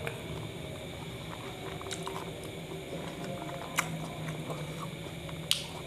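A person chewing a mouthful of kebab wrap with wet mouth sounds, with a few sharp clicks, the loudest a little before the end.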